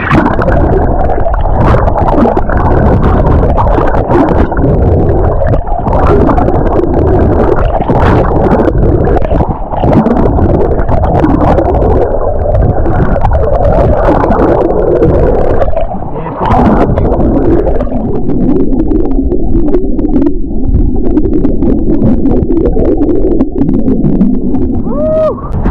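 Muffled underwater rushing and gurgling of water heard through a submerged action camera, with scattered sharp clicks and knocks.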